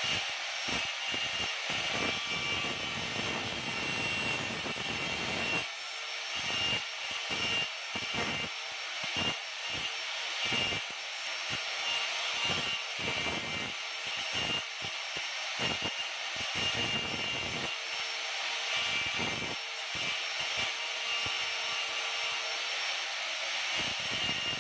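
Electric angle grinder cutting into rusted steel: a steady high whine, with a harsher grinding noise that comes and goes many times as the disc bites into the metal and eases off.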